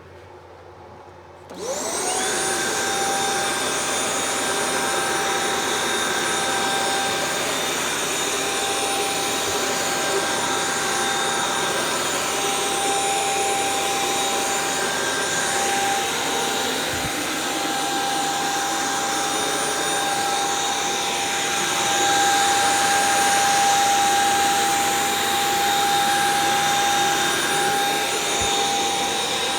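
Hoover SmartWash carpet cleaner switched on about a second and a half in: its motor spins up with a quickly rising whine, then runs steadily with a high whine over a rushing hiss.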